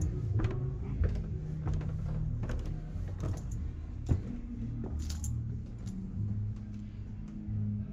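Footsteps and knocks on wooden stairs, irregular throughout, over a low, muffled bass line of music from a band playing inside the building.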